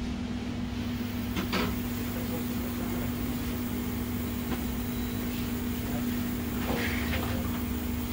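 Steady electrical hum under a faint hiss, with a few light clicks and taps of tools being handled on a repair bench: one about a second and a half in, another midway, and a short cluster near the end.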